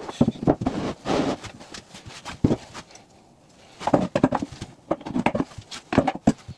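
Repeated wooden knocks and clunks of veneered MDF panels being handled and set down on a workbench, in two bursts with a quieter pause in the middle.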